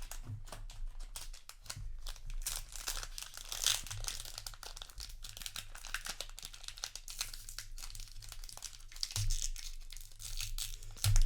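Trading-card booster pack wrappers crinkling and tearing open while cards are flipped through: a dense, continuous run of crackles and rustles.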